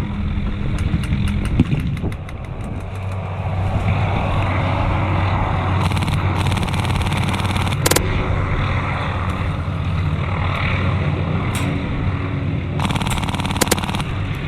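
Airsoft gun fire: rapid clicking shots in short bursts about a second in and again near the end, with a single sharp crack about eight seconds in, over a steady low hum.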